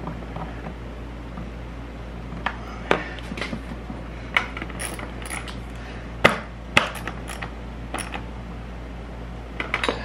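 A ratchet clicking in short strokes, with scattered sharp metal clicks and taps, as a hose clamp on a motorcycle carburetor is tightened. Two sharper clicks come a little past halfway.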